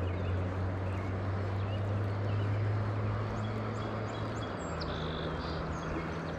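A motor runs steadily with a low hum, its tone changing and dropping about four and a half seconds in, over a steady outdoor hiss with faint bird chirps.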